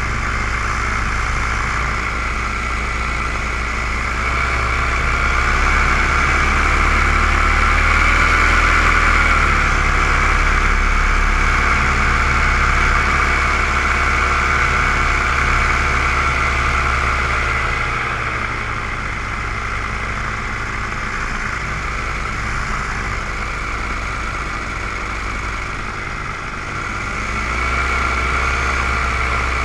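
Propeller and motor whine of a low-flying aircraft, heard from a camera mounted on it. The high whine is steady, with a lower pitched tone that shifts up and down a few times, over low wind rumble.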